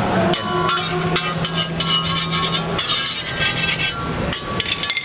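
Metal spatula scraping and tapping on a hot flat-top griddle, in a run of short, rough strokes.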